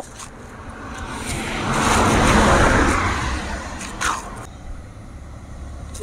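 A road vehicle passing by, its noise swelling to a peak about halfway through and then fading away.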